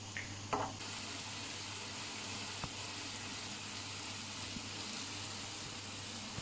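Sofrito of chopped onion, garlic and red and green peppers sizzling steadily in oil in an electric paella pan, with one short knock about half a second in.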